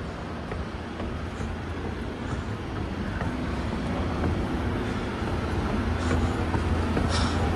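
Escalator running: a steady low mechanical hum that grows gradually louder as the ride nears the top.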